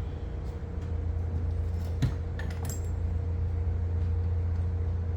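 A few light clicks and clinks of small metal parts being handled, over a steady low hum.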